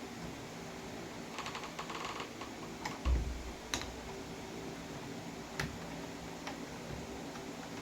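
Small metal clicks and rattles from taking apart a doorknob assembly, with a quick run of ticks about a second and a half in, a dull thump about three seconds in and a few single sharp clicks after it.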